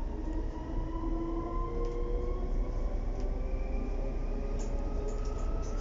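Ride noise inside a DB Class 430 electric S-Bahn train on the move: a steady low rumble under several electric traction-motor whines that climb slowly in pitch as the train gathers speed. A few light rattles come near the end.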